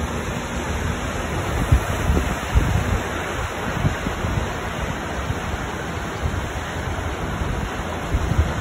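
Surf washing up a sandy beach in a steady rush, with wind gusting on the microphone in low rumbles.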